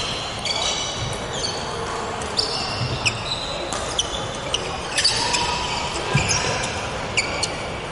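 Badminton rally: several sharp cracks of rackets striking the shuttlecock, amid frequent short high-pitched squeaks of court shoes on the wooden floor.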